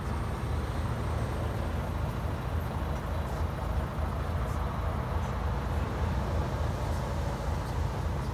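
Volvo FH500's 13-litre straight-six diesel idling steadily, a low even rumble heard from inside the cab.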